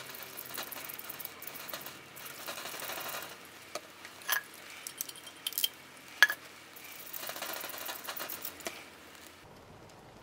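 Small fire of WD-40 and motor oil burning around a match: stretches of hissing with a few sharp crackles and pops near the middle.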